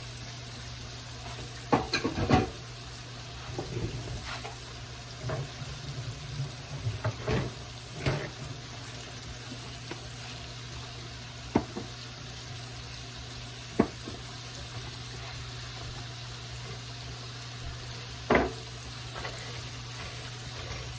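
Oyster mushrooms frying in hot oil in a pan with a steady sizzle. Occasional sharp knocks and clinks of kitchenware come over it, along with a low steady hum.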